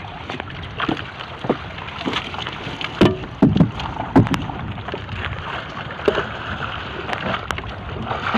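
Water splashing and sloshing against the hull of a small fishing boat as a net full of tamban sardines is worked at the side, with irregular splashes and a few sharp knocks, the loudest about three to four seconds in.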